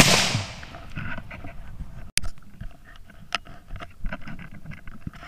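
A single shot from a .17 HM2 rimfire rifle: one sharp crack that rings off over about half a second. About two seconds in a sharp click, then scattered rustling and small handling knocks.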